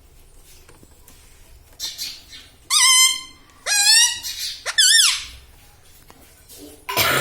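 Pet ringneck parakeet giving three loud, high-pitched, wavering squeaky calls in quick succession, about a second apart, preceded by a fainter one.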